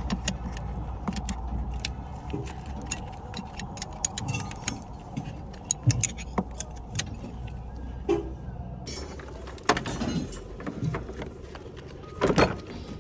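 Repeated light metallic clicks and clinks over a low steady rumble, with a few louder knocks near the end.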